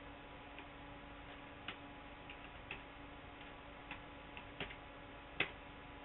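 Irregular sharp clicks of keyboard keys pressed to move through the BIOS setup menu, about eight of them, the loudest near the end. Under them runs the steady hum of the test bench's CPU cooler fan and power supply.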